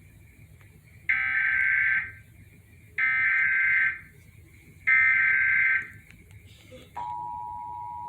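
Emergency Alert System SAME header: three digital data bursts, each about a second long with about a second between them, encoding the Required Monthly Test alert. About seven seconds in, the steady two-tone EAS attention signal starts.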